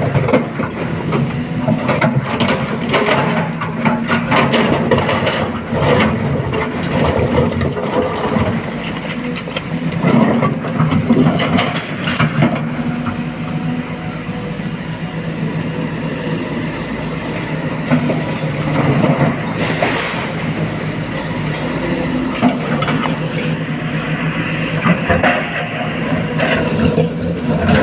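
Heavy diesel engines of a SANY SY225 excavator and a Bharat Benz truck running steadily during loading, with scattered knocks and clatter throughout.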